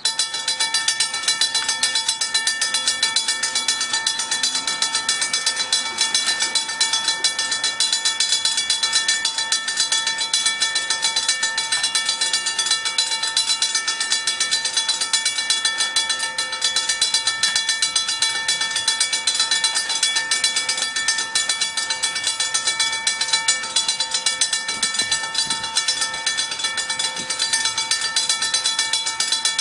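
Railroad grade-crossing bell ringing rapidly and steadily, starting abruptly; it signals an approaching train.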